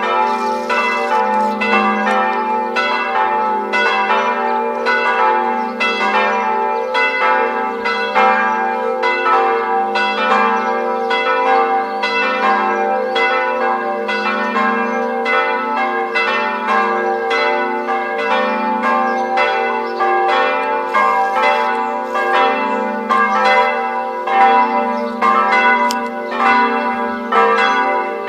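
Several church bells of different pitches pealing together, strokes following one another without a break over the long steady hum of the lowest bell.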